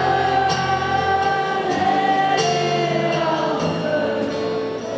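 Live rock band playing, with a lead voice singing long held notes over the band.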